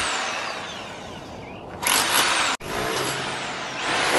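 Passing road traffic: a vehicle's engine and tyre noise, with a falling whine over the first second or so. The sound breaks off for an instant about two and a half seconds in.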